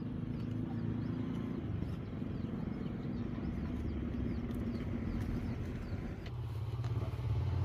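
Motor vehicle engine running steadily on the road close by. About six seconds in, a deeper engine sound sets in and keeps getting louder as a vehicle approaches.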